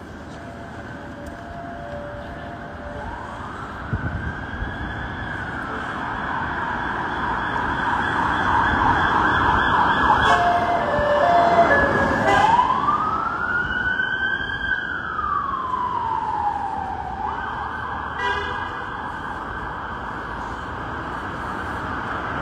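Emergency vehicle siren wailing in slow rising and falling sweeps over street traffic noise. It grows louder toward the middle and then fades somewhat as the vehicle passes.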